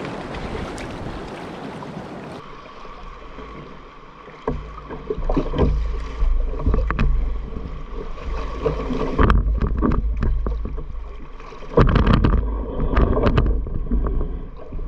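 Double-bladed paddle strokes splashing on a decked canoe in choppy, wind-driven river water, with the odd knock of paddle or hull. Wind rumbles on the microphone throughout. Steady rushing water fills the first couple of seconds, and the splashes and knocks come repeatedly from about four seconds in.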